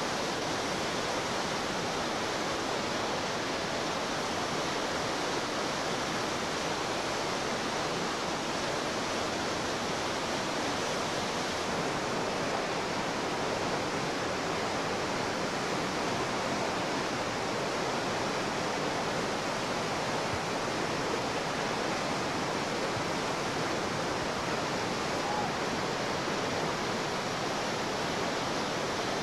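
Whitewater rapids rushing steadily, an even, unbroken wash of churning water.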